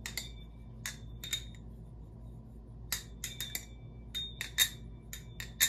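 ZZYZX Incept balisong (butterfly knife) being handled and flipped: sharp metal clacks of the handles and blade meeting, each leaving a short bell-like ring. A few single clacks come first, then quicker runs of clacks from about three seconds in.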